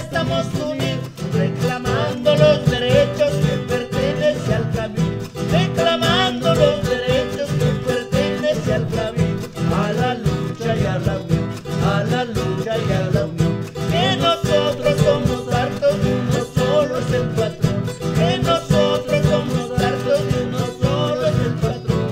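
Andean folk song played by a band: strummed guitars keeping a steady rhythm under a wavering melody line.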